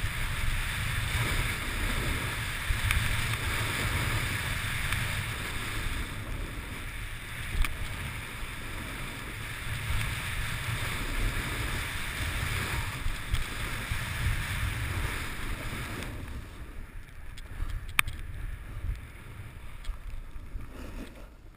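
Wind rushing over a helmet-mounted camera and a snowboard hissing through deep powder snow, as a steady low rumble and hiss that drops off clearly for the last few seconds.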